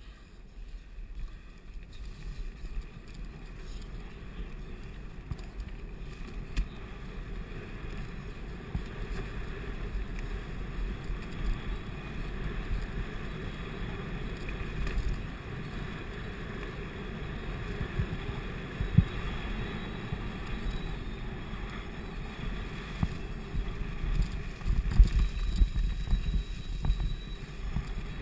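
Mountain bike rolling along a dirt forest trail: a steady low rumble of wind on the camera microphone with tyre and drivetrain noise, and a few sharp knocks as the bike goes over bumps.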